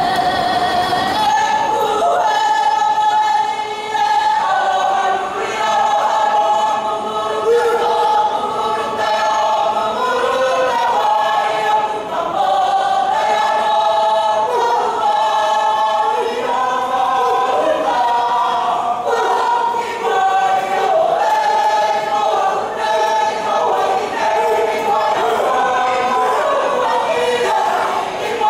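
A Māori kapa haka group singing a whakaeke, the entrance song, with many voices together in one continuous song.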